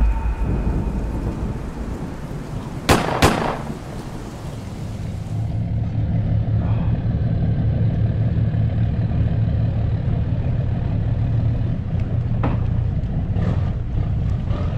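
Intro sound effect: a thunder-like rumble fading out, with a sharp double crack about three seconds in. From about five seconds a boat engine idles with a steady low hum.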